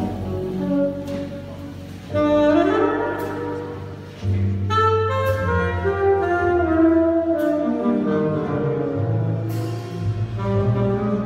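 A jazz big band playing a slow piece: sustained horn chords with saxophone to the fore over a bass line, swelling up sharply about two seconds in and again about four seconds in.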